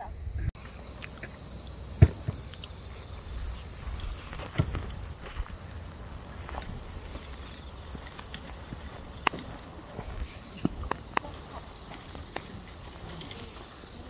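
Night insects (crickets) trilling steadily at one high pitch, with scattered sharp clicks and knocks over it, the loudest about two seconds in.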